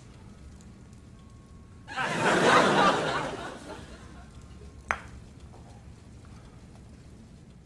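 A short burst of laughter starting about two seconds in and fading out over a second or so, followed by a single sharp click near five seconds, over a faint steady background hum.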